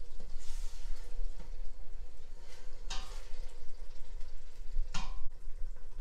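A spatula stirring and scraping a blended pepper-and-onion mix frying in palm oil in a stainless steel pot, with two sharp scrapes against the pot, about three and five seconds in.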